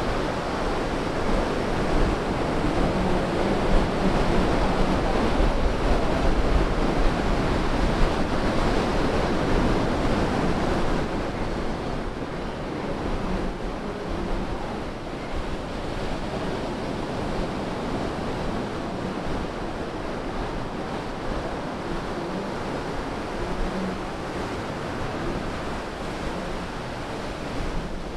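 Ocean surf breaking and washing up the sand around the pier pilings: a continuous rushing wash, somewhat louder for the first ten seconds or so, then easing a little.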